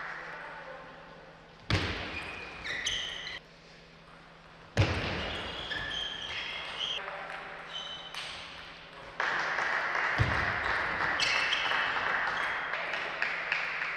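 Table tennis play in a large hall: the plastic ball ticking off bats and table, with short high squeaks and a few brief voice sounds. The sound jumps abruptly a few times, between points.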